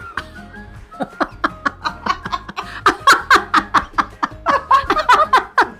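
Women laughing hard: a quick run of short breathy bursts that starts about a second in and, after a brief break, keeps going until near the end.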